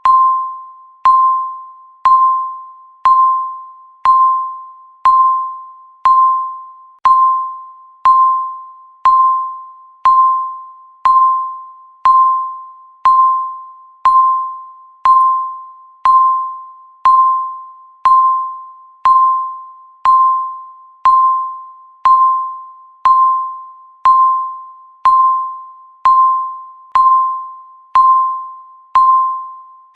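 Countdown timer beep sounding once a second, each marking one second of the count. Each beep is a single clear tone that starts sharply and fades away before the next.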